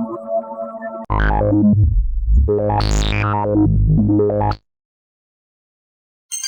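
Synthesized futuristic sound effects. A short electronic tone pattern cuts off about a second in. A loud, deep synth effect follows, its pitched tones sweeping up and back down before it stops abruptly. After nearly two seconds of dead silence, another effect starts right at the end.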